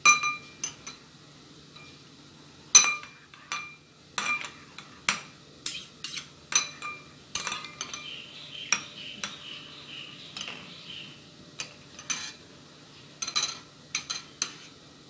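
Stainless steel spoon stirring a thin soy-sauce dip in a glass bowl, clinking against the glass in many irregular, ringing strikes.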